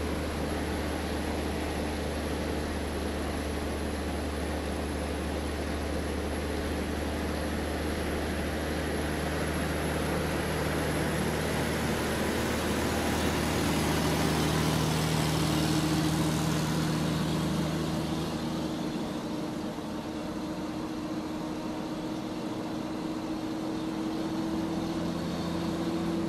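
Remote-control model Caterpillar excavator working, with a steady engine-like drone under a motor whine. The whine shifts in pitch and grows louder partway through as the arm and bucket move, and the low drone drops away about two-thirds of the way in.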